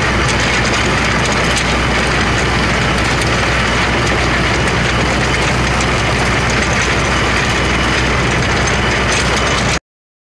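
Iseki Geas NTA343 tractor's engine running at a steady idle, cutting off suddenly near the end.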